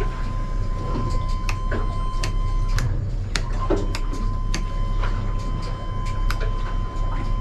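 Sharp clicks of toggle switches being flipped on a boat's helm switch panel, over the steady low rumble of the running F300 outboard and a steady high-pitched tone.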